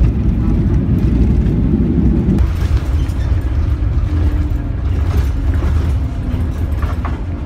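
Loud low rumble of an airliner cabin that changes abruptly, about two and a half seconds in, to the steadier, thinner drone of a bus engine heard from inside the bus.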